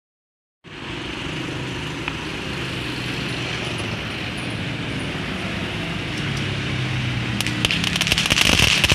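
A steady low hum and hiss, then about seven seconds in a firework fountain goes off with dense, rapid crackling that grows louder.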